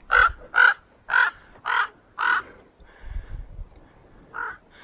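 Common raven calling: five harsh caws in quick succession about half a second apart, then two quieter ones near the end.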